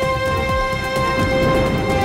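Dramatic intro theme music: a sustained chord held over low, pulsing beats.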